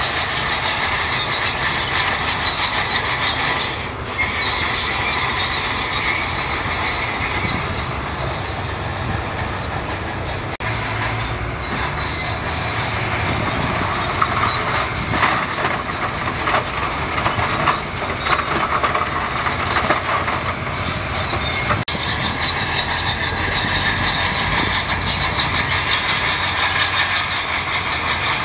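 Shantui crawler bulldozer working: its steel tracks squeal and clank steadily over the running diesel engine.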